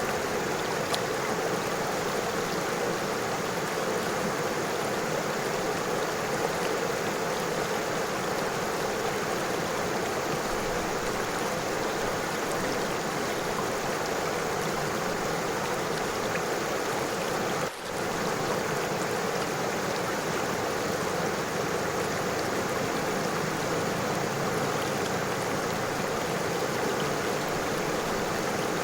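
River water flowing steadily over stones, a continuous rushing babble. It briefly dips in level about two-thirds of the way through.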